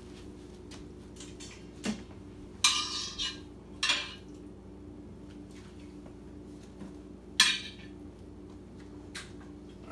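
Browned chicken thighs set one by one back into an Instant Pot's stainless steel inner pot holding chicken stock: a few short clatters and knocks against the pot, about two, three, four and seven and a half seconds in.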